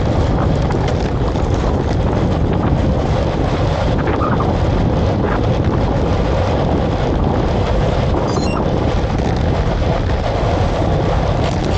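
Steady, loud wind noise buffeting the microphone, a dense low rumble with no clear engine or voice in it.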